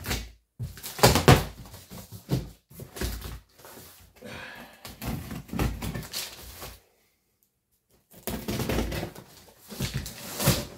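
A cardboard box being opened by hand: scissors cutting packing tape, tape ripping off, and the cardboard flaps pulled back, giving a series of scrapes, rustles and dull cardboard thumps, broken by about a second of silence partway through.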